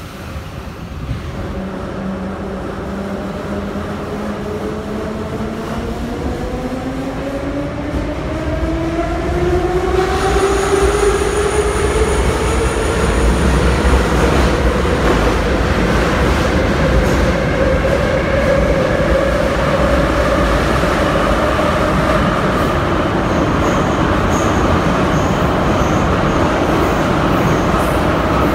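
Inside an 81-717/714 'Nomernoy' metro car pulling away from a station. The traction motors' whine climbs in pitch for about ten seconds as the train accelerates. After that the car runs at steady speed through the tunnel, louder, with a low rumble of wheels on the rails under a steady hum.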